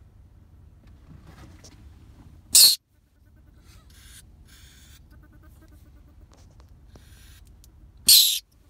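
Trapped short-tailed weasel (ermine) vocalizing: two sharp, loud hisses, about two and a half seconds in and again near the end, with softer hissing bursts and a faint rapid trill between them.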